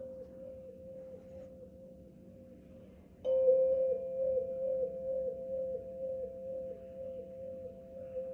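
A handheld white singing tube played with a mallet. It gives a sustained ringing tone that pulses about twice a second, and is struck about three seconds in, adding a brighter second tone that rings on and slowly fades.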